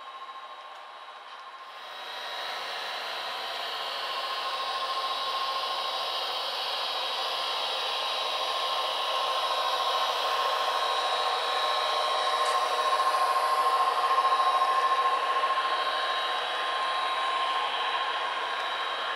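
HO-scale model train running along the track: a steady whirring hiss of motors and wheels on rail with a faint thin whine, growing louder about two seconds in and swelling as the train passes close.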